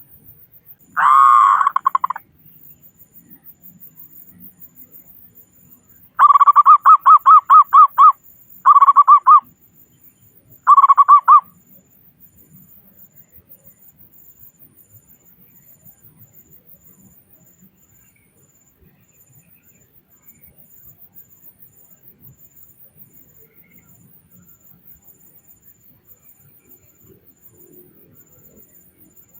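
Zebra dove (perkutut) cooing: one drawn-out note about a second in, then a fast rolling run of short coos about six seconds in, followed by two shorter bursts of the same notes.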